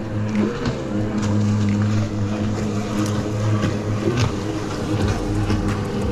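Jet ski engine droning steadily as it speeds across the water. A low rumble comes in about five seconds in.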